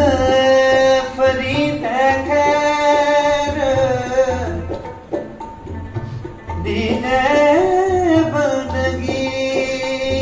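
Sikh kirtan music: a sarangi carries a melody of long, gliding held notes over a steady tabla rhythm, with a plucked rabab accompanying.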